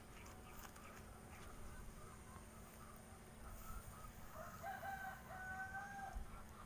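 A rooster crowing once, faintly, starting about four and a half seconds in: one call of a little under two seconds, in a few linked parts.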